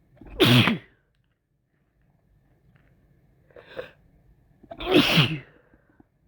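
A person with a cold sneezing twice, each sneeze a sudden loud burst that drops in pitch. A short gasping intake of breath comes just before the second sneeze.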